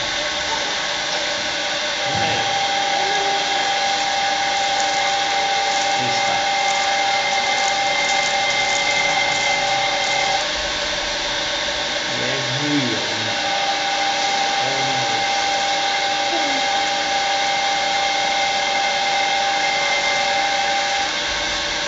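A metal lathe running and turning a white plastic wheel blank, the tool peeling off long shavings. The machine noise holds steady, with a high whine that breaks off about ten seconds in and comes back a few seconds later.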